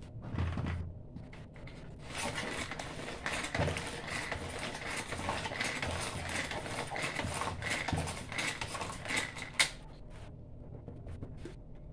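Tupperware Extra Chef hand-operated mixer beating brownie batter (melted chocolate, butter, eggs and sugar): a rattling plastic whir with a pulse about twice a second, starting about two seconds in after a few knocks of handling and stopping near the end with a sharp click.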